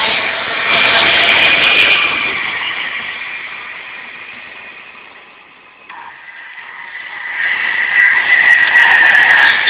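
Electric trains passing through a station at speed. The rush and whine of a Virgin Pendolino fades away over the first few seconds, then a second train comes through loudly near the end with a high whine that drops slightly in pitch and some sharp clicks.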